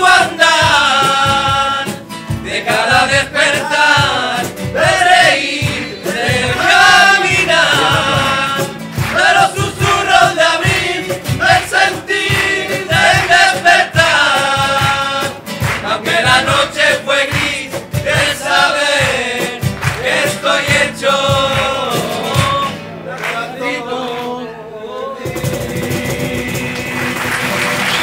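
A group of men singing a flamenco-style song together, accompanied by two Spanish guitars and a cajón. About three seconds before the end the song finishes and applause starts.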